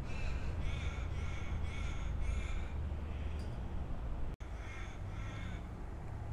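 A crow cawing: about five harsh caws in quick succession, then two more a couple of seconds later, over a steady low rumble.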